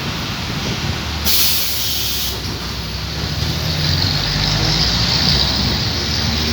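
Traffic on a wet road: a heavy vehicle's engine running and tyre hiss, with a short sharp burst of hissing air about a second in.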